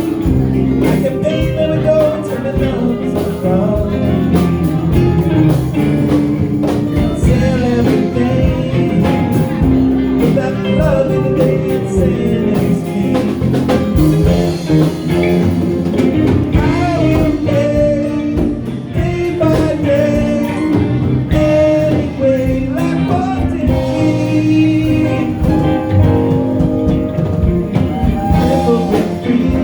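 A band playing a song: singing over guitar, with drum hits keeping a beat throughout.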